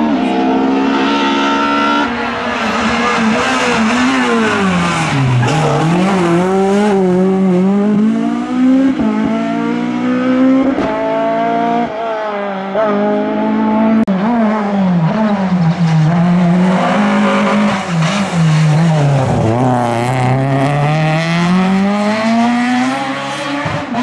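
F2000-class rally car engines at hard throttle, several cars in turn: the revs climb steeply and fall again and again, dropping sharply on gear changes and braking.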